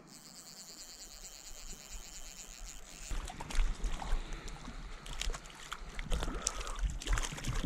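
Water splashing as a hooked trout thrashes at the surface and is drawn toward a landing net: a faint hiss at first, then irregular sharp splashes and sloshing from about three seconds in.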